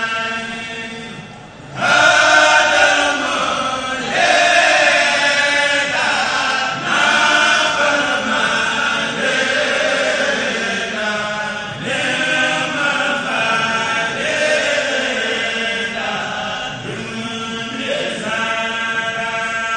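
Male choir (kourel) chanting a Mouride khassida in unison, in long melodic phrases with short breaks between them. The voices fall away briefly about a second and a half in, then the full group comes back in loudly.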